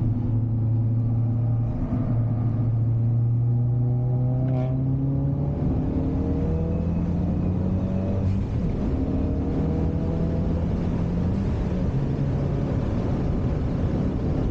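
Ford Focus RS's turbocharged four-cylinder engine heard from inside the cabin while lapping a race circuit, with road and tyre noise. Its note climbs slowly for about five seconds, then rises and drops in steps as the driver accelerates and lifts.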